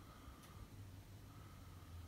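Near silence: room tone with a faint low hum and one faint tick about half a second in.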